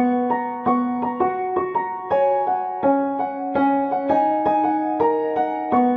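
Background piano music: a simple melody of single struck notes in a steady run.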